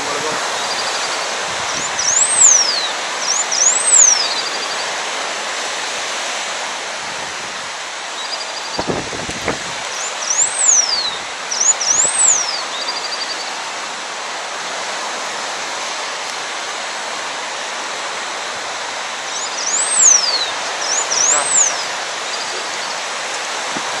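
Blue finch singing: three short phrases about eight seconds apart, each with two high, thin notes that rise and fall quickly and a few short buzzy notes, over a steady rushing hiss.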